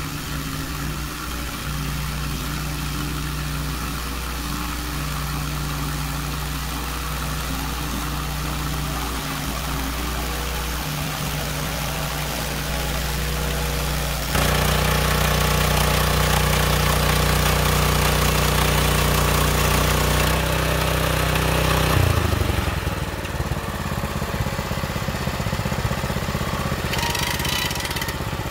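Small gasoline engine of a Hudson Hunter band sawmill running steadily, louder about halfway through, then dropping to a slower, pulsing idle a little after 20 seconds in. Near the end comes a short run of quick ratchet clicks as the head-height winch is cranked.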